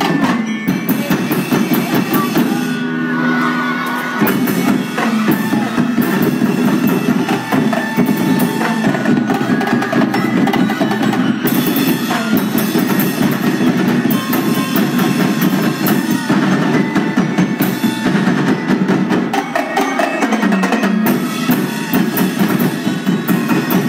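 Loud drum-led street-dance music, with drums and percussion beating a steady rhythm and a few held tones above.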